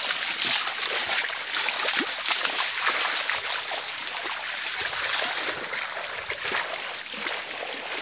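Feet splashing and sloshing through shallow water as people wade across a muddy stream, a continuous hiss of water noise with small irregular splashes.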